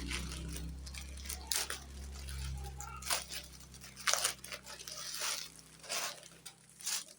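Packaging crinkling and rustling in short bursts, about half a dozen times, as a parcel is opened. A low hum sits underneath for the first five seconds or so.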